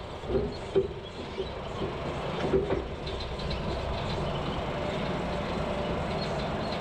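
Logging truck running steadily with a rattling rumble, with a few sharp clanks in the first couple of seconds.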